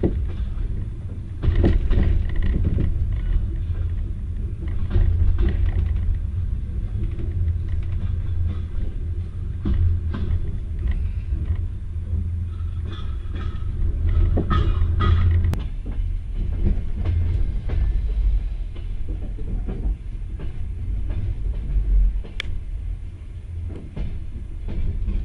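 Moving passenger train heard from inside the carriage: a steady low rumble from the running gear, with irregular clicks and knocks from the wheels on the rails.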